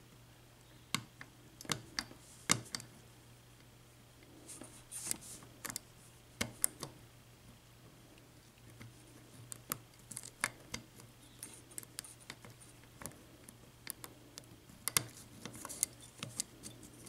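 Lock pick and tension wrench working inside the pin-tumbler cylinder of a Kasp 14040 padlock, which has spool and serrated pins: faint, irregular small clicks and short scrapes as the pins are lifted one at a time.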